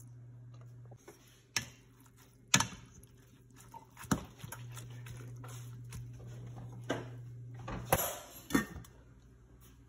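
Sharp clinks and knocks of a utensil against a stainless steel pot while collard greens are stirred, with a clatter near the end as the metal lid is set on. A steady low hum runs underneath.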